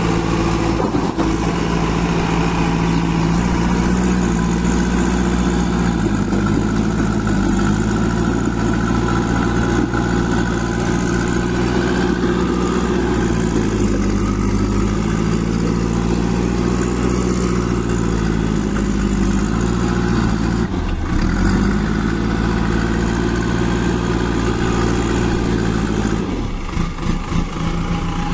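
Kirloskar diesel engine of a JCB 2DX backhoe loader running, its pitch shifting a little as the engine speed changes. It dips briefly about two-thirds of the way in, and near the end its low thrum turns uneven and pulsing.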